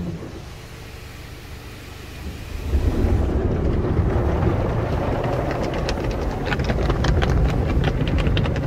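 Rotating cloth-strip brushes of an AUTEC AES-260 in-bay automatic car wash scrubbing along the car, heard from inside the cabin as a rumbling wash of noise. It gets louder about three seconds in, and over the last few seconds the strips make rapid, rhythmic slaps against the glass.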